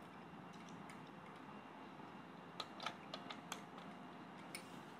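Small hard plastic clicks and taps at an uneven pace, several clustered in the middle and one more near the end, as plastic clock panels and snap-on connectors are handled and pressed together.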